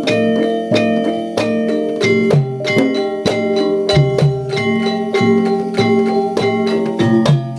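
Instrumental music of struck, pitched mallet percussion: a steady, even run of ringing metallic or wooden notes, each note sustaining after its strike.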